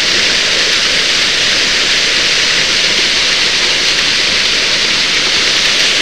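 Waterfall splashing into a rock plunge pool: a loud, steady rush of falling water.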